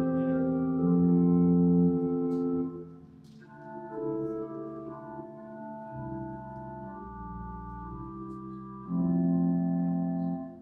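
Organ playing slow held chords as the introduction to the responsorial psalm. It is loud for the first few seconds, softer through the middle, swells again about nine seconds in and drops away at the end.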